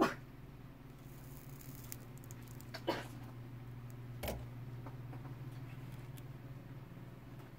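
A few sharp clicks and small snaps as pliers grip and bend the nickel strip tab on a lithium-ion cell of a drill battery pack, the loudest right at the start and others about three and four seconds in, over a steady low hum.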